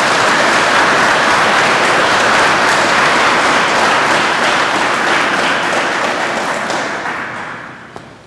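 A congregation applauding with many hands clapping at once, steady at first and dying away over the last two seconds or so.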